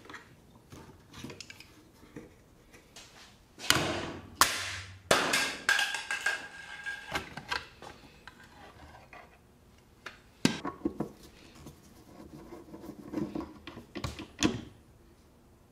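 Hands taking apart the chrome-plated metal housing of an old stand mixer's motor head: scattered knocks, clatter and scraping of metal parts. One knock is followed by a short metallic ring.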